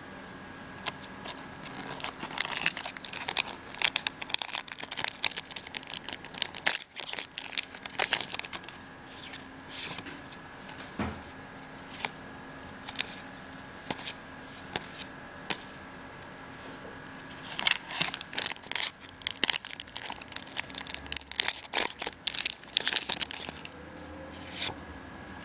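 Foil booster-pack wrapper crinkling and tearing, with trading cards rustling and sliding against each other as they are flipped through, in bursts of busy crackling with quieter gaps.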